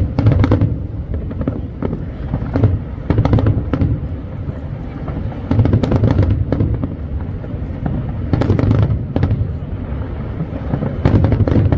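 Fireworks display: aerial shells bursting in barrages, clusters of sharp bangs and crackles over a continuous low rumble, a fresh volley about every two to three seconds.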